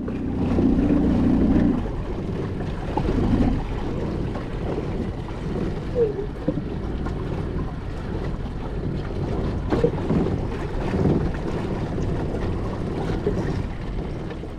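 Wind buffeting the microphone and choppy water slapping against a small aluminium fishing boat's hull as it moves, over a steady low rumble that is loudest for the first two seconds.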